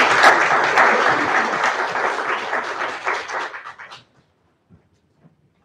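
Audience applauding with dense clapping that dies away about four seconds in.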